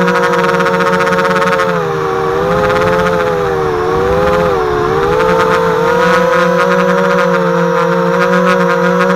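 HobbyKing FPV250 quadcopter's brushless motors and propellers whining loudly in flight, heard from its onboard camera. The pitch wavers with the throttle and dips twice, about two and four and a half seconds in.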